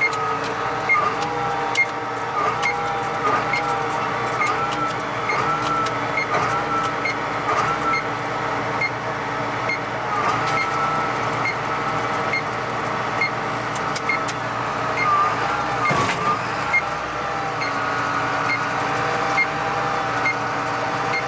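Tractor engine running under varying load while baling, heard inside the cab, its pitch dipping and recovering every second or so. A baler monitor beeps steadily at about two beeps a second.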